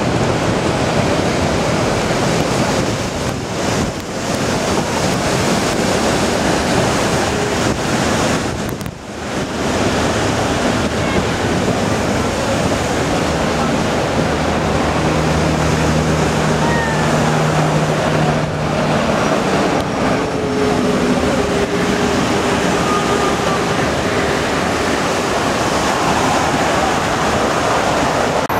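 Steady loud rushing noise of a moving narrow-gauge train: wind across the microphone mixed with wheel and track noise, dipping briefly about four and nine seconds in.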